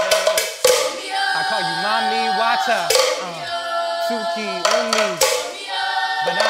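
Several voices singing, a low male voice leading with arching, gliding phrases. The shekere rattling stops about half a second in, leaving the voices nearly alone apart from a few scattered hits.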